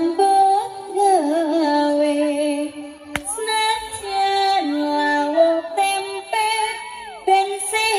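A female voice singing a slow melody over music, in long held notes that step between pitches, with sliding ornaments. A single sharp click about three seconds in.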